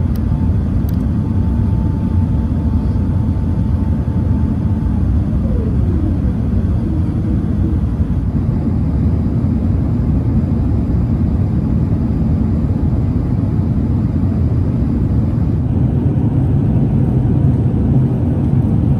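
Steady low roar of engines and airflow inside the cabin of an Airbus A380 in flight. A faint tone slides down in pitch about six seconds in.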